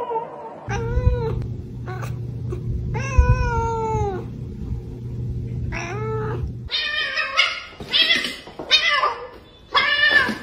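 A calico cat meowing up at its owner for food: three drawn-out meows, the middle one long and falling in pitch. After a cut, another cat gives four shorter, higher meows about once a second.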